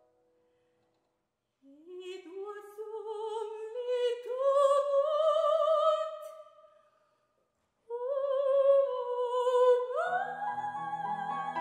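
Classical soprano voice singing an art song: an unaccompanied rising phrase with wide vibrato, then after a short pause a second phrase. A grand piano comes in beneath the voice about ten seconds in.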